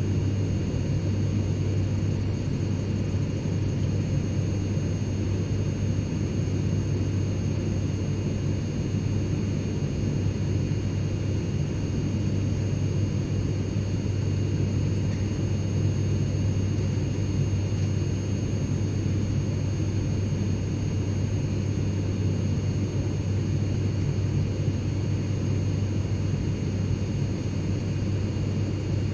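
Private jet cabin ambience: a steady low rumble of engine and airflow noise, with faint high steady tones over it, unchanging throughout.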